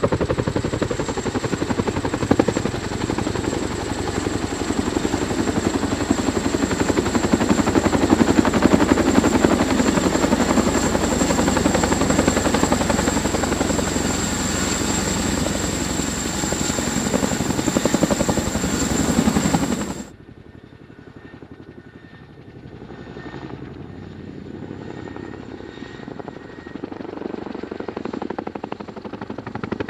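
Heavy-lift military helicopter running loud, its rotor noise topped by a steady high whine. About two-thirds of the way through it cuts off suddenly to a quieter helicopter sound that slowly grows louder.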